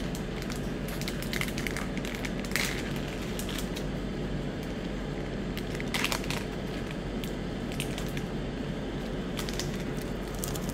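Foil wrapper of a Magic: The Gathering set booster pack crinkling as it is torn open and the cards are drawn out. A few sharper crackles stand out over a steady background hiss.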